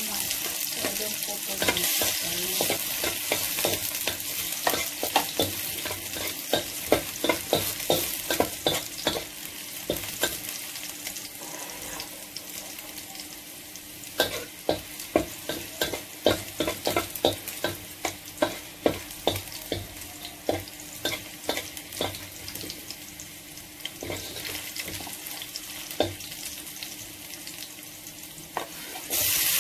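Chopped garlic sizzling in a metal wok, stirred with a metal spatula that scrapes and clinks against the pan in quick runs of strokes.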